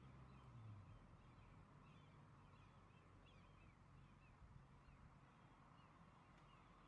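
Near silence: faint outdoor background with distant small birds giving short, repeated high chirps.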